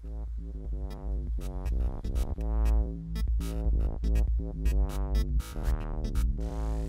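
Electronic music: a heavy bass line under synth chords and drum-machine hits, with a rising noise sweep building near the end.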